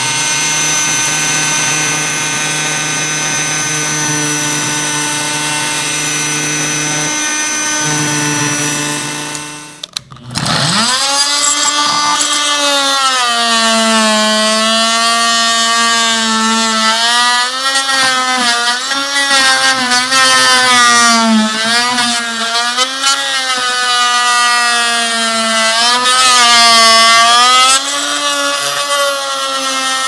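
A hand-held electric power tool's motor runs at a steady pitch, then cuts out about ten seconds in. A second hand-held power tool then starts and spins up, its pitch repeatedly dipping and recovering as it is loaded against the wall.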